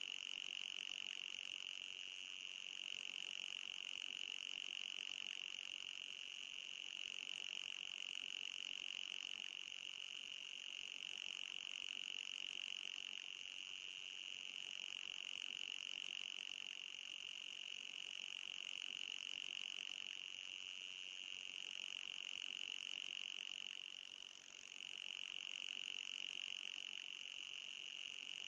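Anti-mosquito repellent sound: a steady, high-pitched electronic buzzing tone with a brief dip near the end.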